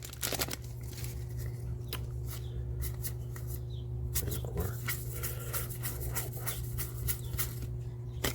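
Trading cards being handled and flipped through one after another, making light clicks and slides, over a steady low hum.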